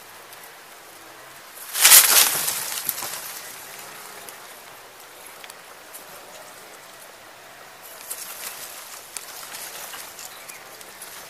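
Outdoor bush ambience with a sudden loud rush of noise about two seconds in that dies away over about a second, followed later by light crackling and rustling.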